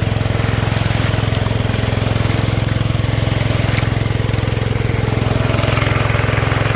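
Small gasoline engine of a 3-inch Keene gold dredge running steadily at a constant speed.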